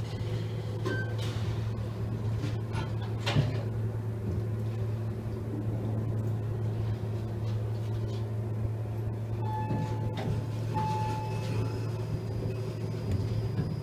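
Otis traction elevator car in operation: a steady low hum throughout, with scattered clicks and one sharper knock about three seconds in. Two short beeps sound about nine and eleven seconds in.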